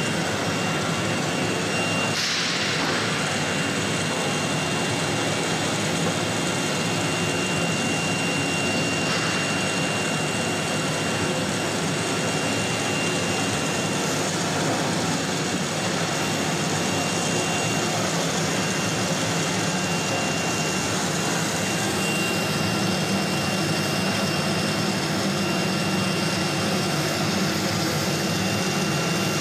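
CNC router's vacuum hold-down pump running steadily, with a thin steady high whine over the noise and a short hiss about two seconds in.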